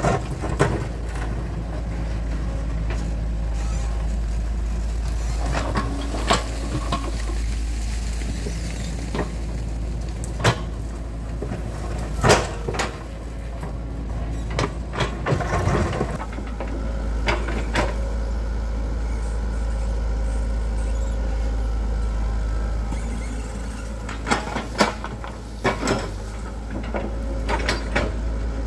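Excavator's diesel engine running steadily, with about ten sharp knocks scattered through it, bunched in the middle and again near the end.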